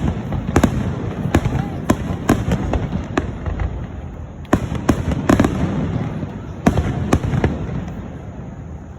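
Fireworks going off: a dozen or so sharp bangs and cracks in irregular succession over a continuous low rumble.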